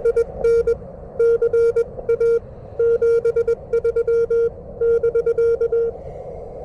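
Morse code (CW) on an amateur radio transceiver: a steady mid-pitched beep keyed on and off in dits and dahs over a hiss of receiver noise. The keying stops about six seconds in.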